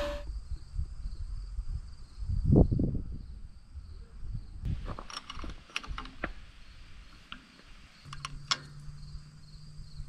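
Light metal clicks and taps of a small open-end wrench working a fitting on the engine block, with low handling bumps. A faint, steady high-pitched trill runs underneath.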